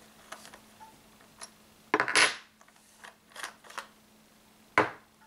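Sharp clicks and clatters of hard plastic and metal parts being handled on an Umarex HDS68 CO2 launcher, with small clicks between; the loudest is a clatter about two seconds in, with another sharp click near the end.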